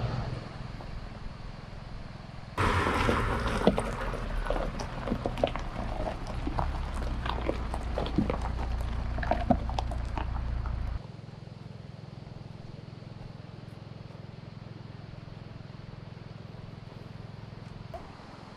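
A car moving slowly over a rough gravel track, its tyres crunching stones over a low engine rumble, from a few seconds in until about two-thirds through. It then drops abruptly to a steadier, quieter running hum.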